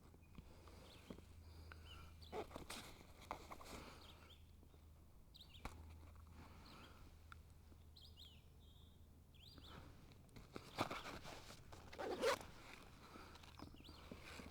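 Faint scattered rustling, clicks and knocks of handling in a kayak, over a low steady hum, with two louder knocks about 11 and 12 seconds in.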